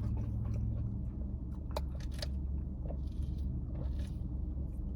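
Chewing a crispy fried chicken sandwich: scattered small crunches and mouth clicks over a steady low hum.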